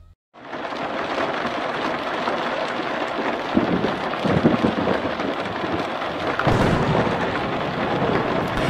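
A thunderstorm: heavy rain pouring steadily, setting in abruptly just after the start, with thunder rumbling twice, about four seconds in and again about six and a half seconds in.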